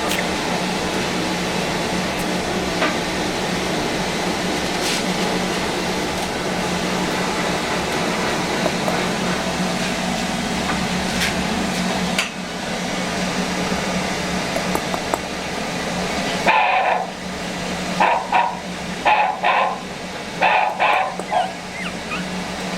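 A one-month-old puppy giving a run of short, high yips in the last third, over a steady background hum.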